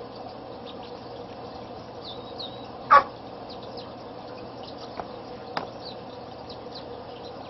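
Mallard ducklings peeping: short, high chirps scattered throughout, over a steady low hum. A single sharp thump about three seconds in is the loudest sound, and two light clicks follow a couple of seconds later.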